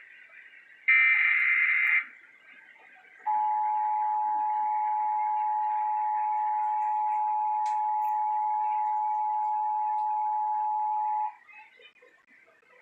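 A burst of about a second of EAS/SAME digital header data tones, then, after a short gap, the EAS two-tone attention signal (853 and 960 Hz sounded together). It holds steady for about eight seconds and cuts off abruptly. The signal announces the emergency warning message that follows.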